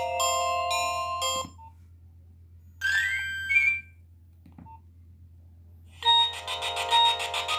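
Nokia 1600 mobile phone ringtones played through the phone's small speaker. One melody of steady electronic notes stops about a second and a half in. A brief phrase with a rising glide follows around the middle, then a faint click. A new ringtone of rapid pulsing notes starts near the end.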